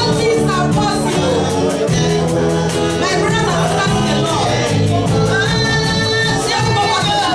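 Worship song played by a band with sung vocals over a steady percussion beat.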